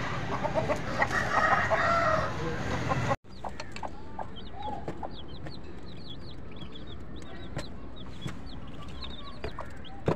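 A chicken calling loudly for the first three seconds, then, after a sudden break, newly hatched chicks peeping over and over in short high chirps, with a few lower clucks from their mother hen.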